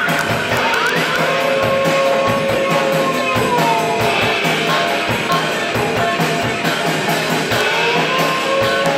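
A live rock band playing loudly: electric guitar and a drum kit with regular hits. Long pitched tones slide up and down over them.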